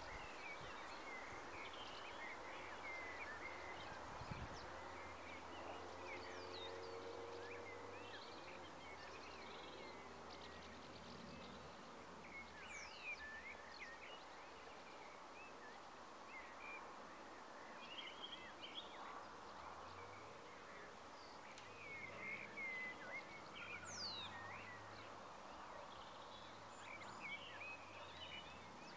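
Faint outdoor ambience: scattered bird chirps and short whistled calls over a steady soft hiss, with a faint low hum that comes and goes.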